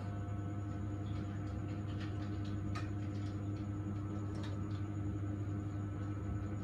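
A steady low hum with a few scattered light clicks and ticks.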